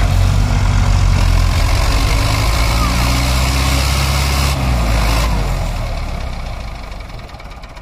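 Diesel engine of a Hindustan tractor working hard as it tows a sugarcane-loaded trolley stuck in mud, with a second tractor's engine running behind it. The deep, steady engine note eases off and grows quieter over the last two seconds.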